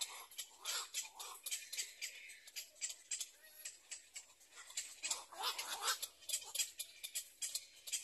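Birds at a black-crowned night heron nest: rapid, irregular clicking and chittering calls, thickest about five seconds in.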